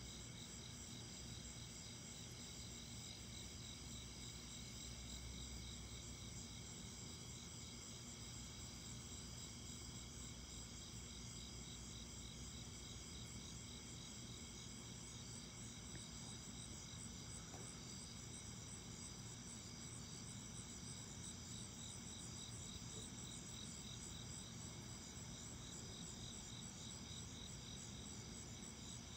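Steady night chorus of calling insects: several high-pitched, rapidly pulsing trills layered together, with a faint low hum underneath.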